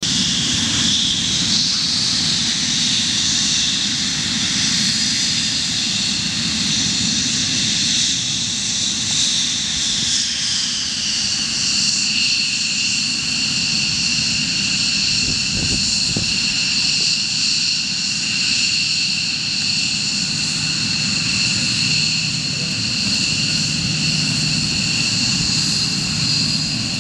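Twin Pratt & Whitney F100 turbofans of F-15 Eagle fighters taxiing, a steady high-pitched turbine whine over a low rumble. The whine slides down in pitch about ten seconds in and then holds steady.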